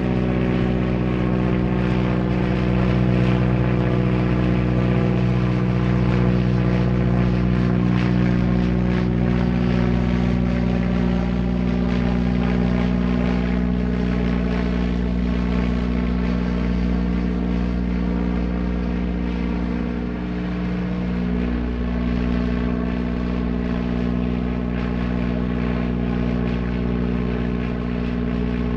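Propeller aircraft engine running at a high, steady pitch, a constant drone with one small shift in tone about two-thirds of the way through.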